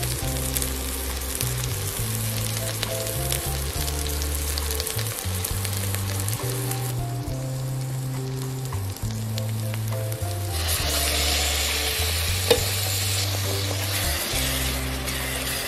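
Chopped onions frying in hot oil in a pan, sizzling as they are stirred, over steady background music. The sizzle fades for a few seconds, then comes back louder about ten and a half seconds in as tomato paste goes into the hot pan, with one sharp knock a couple of seconds later.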